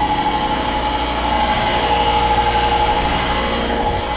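York chiller's Bitzer scroll compressor running, a steady hum with a steady high tone over a low rumble. The uploader suspects that the compressor is dying.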